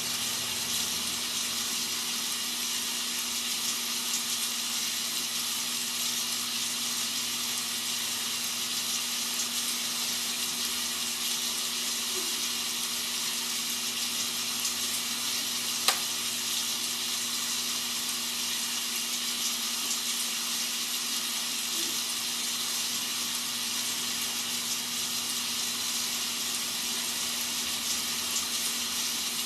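Rain sound effect used as white noise: a steady, even hiss of rainfall, with a faint steady low hum beneath it and one sharp click about halfway through.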